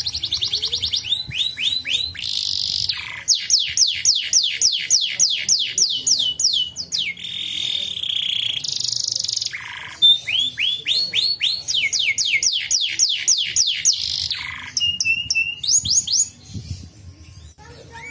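Canary singing a long, loud song of rapid repeated rising notes and trills. The phrase changes every second or two.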